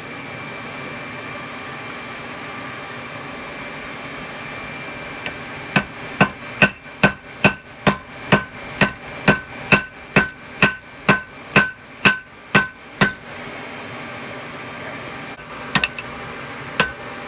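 Hand hammer striking hot steel on an anvil while forging a tomahawk head: a steady run of about seventeen blows, a little over two a second, each with a short metallic ring, then a pause and a few more blows near the end. A steady rushing noise runs underneath.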